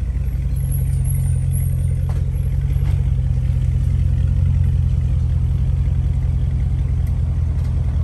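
Chevrolet TrailBlazer SUV engine idling: a steady low rumble.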